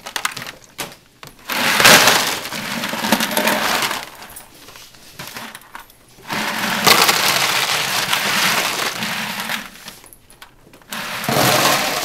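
Ice cubes poured from a bucket, clattering and rattling into a clear plastic tub in three long pours: one starting about two seconds in, a longer one from about six seconds in, and a short one near the end.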